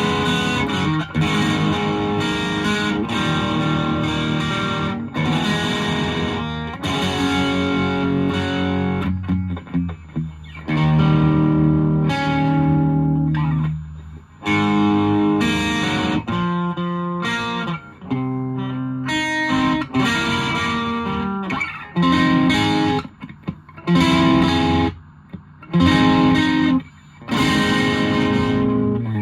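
Electric guitar (Fender Japan Jazzmaster) played through a 1985 Japan-made Boss DS-1 distortion pedal into a small valve amp, strumming distorted chords with sustained ringing chords, short choppy stabs and brief stops. Raw phone-microphone sound of the amp in a small room.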